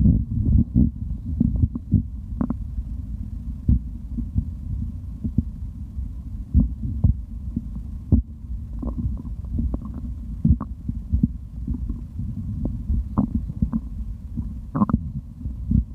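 A person's stomach gurgling and rumbling after drinking: a continuous low rumble with frequent irregular small pops and gurgles as the liquid moves through the gut.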